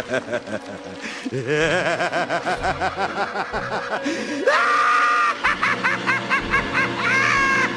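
Intro jingle: maniacal cackling laughter over music with a steady beat, the laughing climbing higher in pitch about halfway through.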